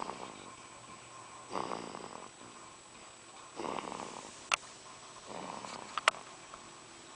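A three-week-old baby snoring in sleep, one noisy breath about every two seconds. Two sharp clicks cut in about four and a half and six seconds in.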